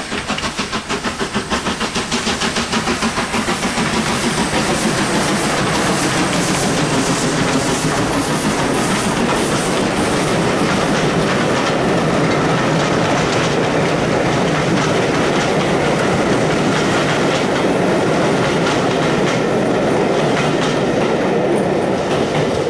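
Steam locomotive hauling a passenger train past at speed: its exhaust beats come fast and rhythmic as it draws near, then the coaches rumble and clatter over the rail joints in a steady rush as they go by.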